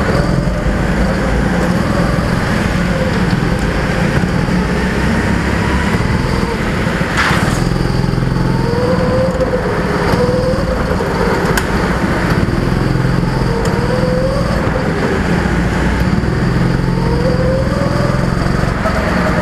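Go-kart engine heard on board, running hard, its pitch rising and falling over and over as the kart speeds up and slows. A single sharp knock comes about seven seconds in.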